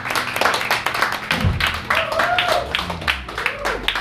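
Audience clapping and applauding after a live song, with a few voices calling out and cheering over the claps.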